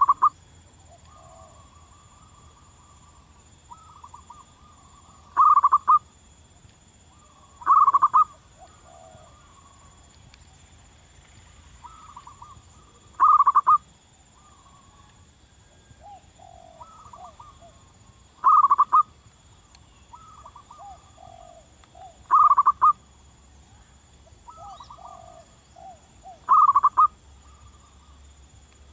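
Zebra dove calling: short, loud cooing phrases repeated seven times, every four to five seconds, with softer rippling coo notes between them.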